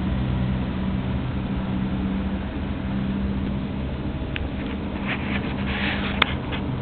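House cat purring, a low steady rumble that swells and eases with its breathing and fades after a few seconds. From about four and a half seconds in there is rustling and rubbing as the camera brushes against the cat's fur and the couch, with one sharp knock just after six seconds.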